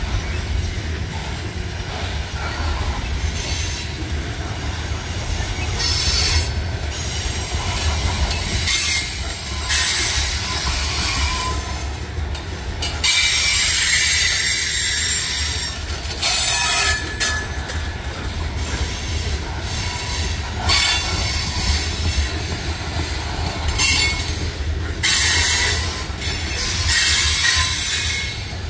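Loaded CSX coal cars of a freight train rolling past: a steady low rumble of steel wheels on the rails, with repeated bursts of high-pitched wheel squeal every few seconds.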